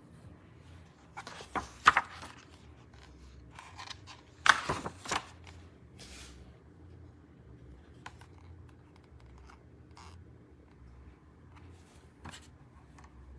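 Two short bursts of clicking and scraping from hard objects being handled, a second or so in and again about halfway through, with a few lighter clicks later over a faint low hum.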